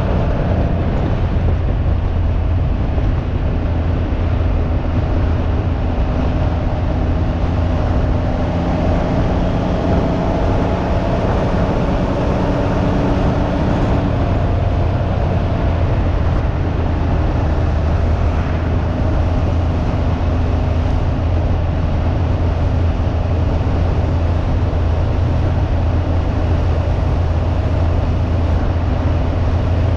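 Can-Am Ryker 900's three-cylinder engine running steadily under way, with wind rushing over the microphone. The engine note edges up slightly, then drops about halfway through.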